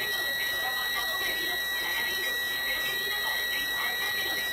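A steady, unbroken high-pitched electronic alarm tone sounding continuously.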